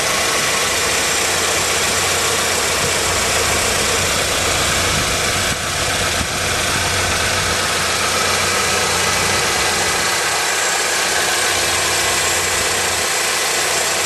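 2014 Chevy Equinox's 2.4-litre four-cylinder engine idling steadily, heard from underneath the vehicle.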